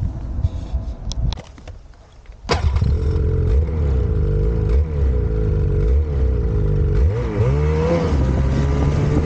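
Lynx Rave RE 3500's Rotax 850 E-TEC two-stroke engine running at idle, coming in suddenly about two and a half seconds in, with a couple of quick revs up and back down near the end. Before it, a few faint knocks.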